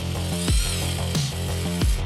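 Electronic background music with a heavy bass line and booming kick drums that fall in pitch, about three in two seconds.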